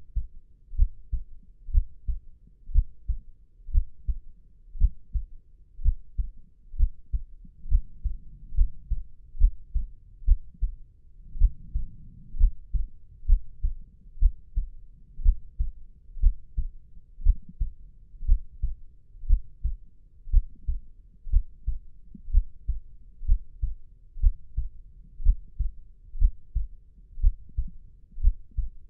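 Slow, steady human heartbeat: low, muffled thumps at about one a second.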